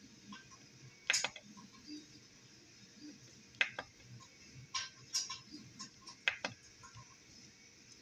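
Rotary encoder knob clicking as it is turned and pressed through a menu: five short clusters of sharp clicks, some doubled, spaced roughly a second apart.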